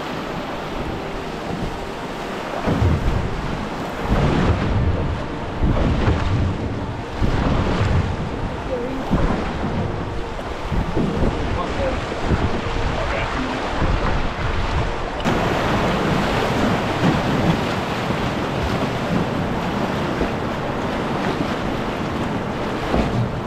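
River rapids rushing and splashing past a drift boat running a riffle, with wind rumbling on the microphone in irregular gusts.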